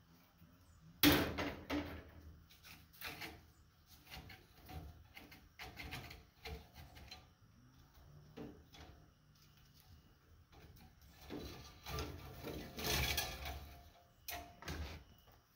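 Stiff copper winding leads from a large armature being pulled and bent off by hand: irregular metallic clinks and rattles, with a sharp knock about a second in and a longer run of rattling near the end.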